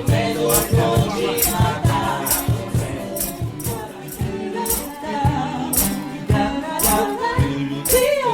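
Vocal trio singing in close harmony over a bass line, with rattle-type hand percussion marking a steady beat.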